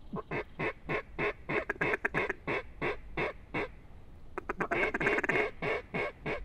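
Mallard-style duck quacking: a long run of evenly spaced quacks, about four a second, then after a short pause a faster, busier run of quacks.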